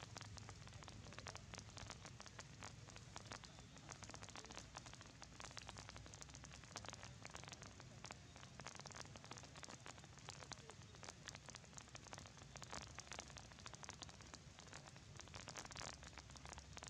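Faint rain falling, a dense, steady patter of many small drops.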